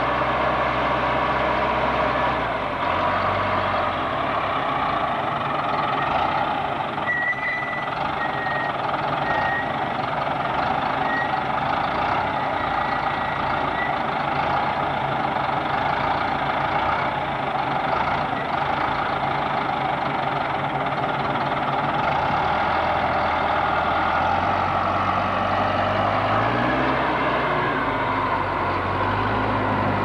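Heavy vehicle engines running steadily as a lumber loader works beside a flatbed truck, with a few short high beeps between about 7 and 13 seconds in. The engine pitch changes near the start and rises again near the end.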